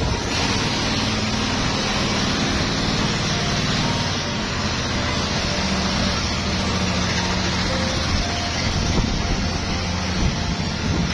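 An engine running steadily under a broad, even noise, its pitch holding nearly level.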